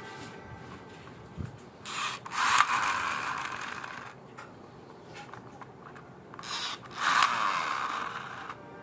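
Plastic toy auto rickshaw being handled: a click about a second and a half in, then two short bursts of plastic rubbing and clicking, each about a second long, near two seconds in and near seven seconds in.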